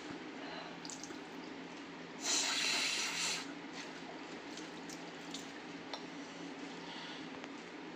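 A person blowing their nose once, a hard hissing blow of about a second roughly two seconds in, over a steady low hum. She has a runny nose from a head cold.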